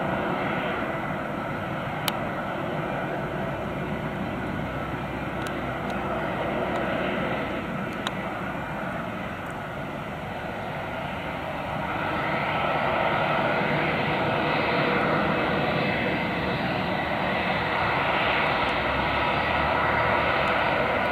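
Airbus A320's IAE V2500 turbofan engines running at taxi power: a steady jet rush and whine that grows louder past the midpoint as the airliner turns toward the listener.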